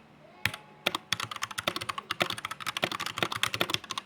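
Fast typing on a Redragon Lakshmi 60% mechanical keyboard with red linear switches: a dense run of key clicks starting about half a second in.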